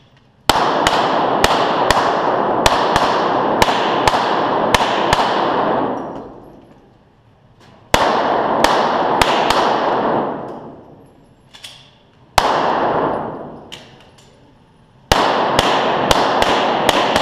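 Glock 17 9mm pistol firing rapid strings of shots, echoing in an indoor range. The first string is about ten shots in five seconds, then three shorter strings follow after brief pauses.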